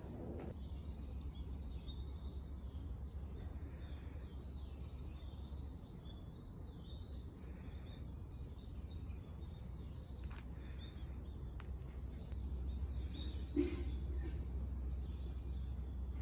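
Small birds chirping in many short calls over a steady low outdoor rumble, with a single brief knock near the end.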